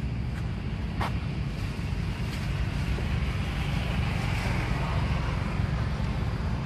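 Wind buffeting the microphone, a steady low rumble, with one sharp click about a second in.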